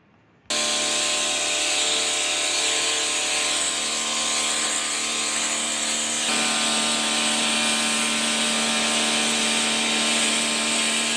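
Bosch electric pressure washer running: the steady whine of its motor and pump mixed with the hiss of the high-pressure water jet spraying a tiled floor. It starts abruptly about half a second in, and its tone shifts slightly about six seconds in.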